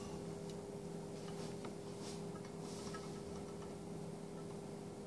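Quiet room tone: a steady low hum with a few faint ticks in the first couple of seconds.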